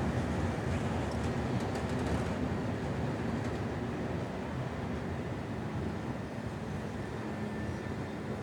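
Freight train of open wagons rolling past: a steady rumble of wheels on rail with a few light clicks, slowly getting quieter.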